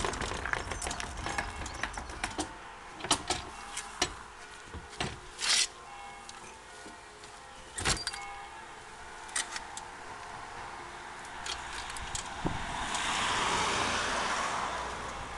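Plastic hitch-mounted cargo box (Towbox V3) being lifted onto a car's tow-bar and set in place: a string of sharp knocks and clicks, the loudest about eight seconds in. Near the end, a rush of noise swells and fades.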